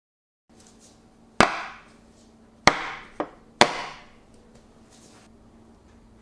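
Metal cake tin holding a freshly baked sponge cake knocked down hard onto the work surface three times. Each knock is sharp with a short ring after it, with a smaller knock just before the third.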